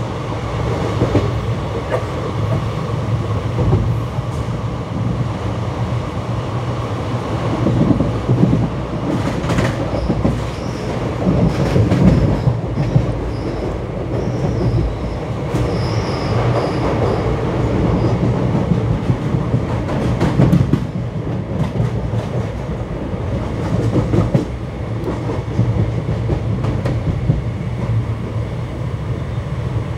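Indian Railways ICF passenger coaches running on the track: a steady rumble with the clickety-clack and knocks of the wheels over rail joints, and a faint high wheel squeal in the middle.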